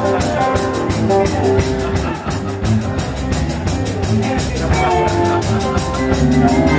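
Live rock and roll band playing an instrumental stretch, with a drum kit keeping a fast, steady beat under electric guitar.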